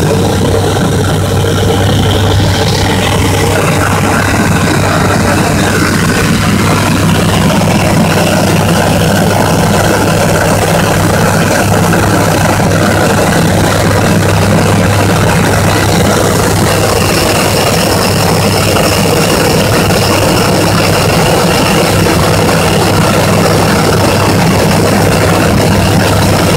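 Bristell light aircraft's piston engine and propeller running steadily in flight, heard inside the closed cockpit as a loud, even hum with airflow noise.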